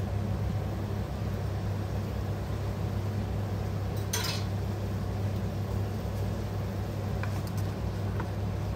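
A steady low kitchen hum, with one clink of metal about four seconds in and a few light taps of a wooden spoon against a frying pan of sautéing shrimp near the end.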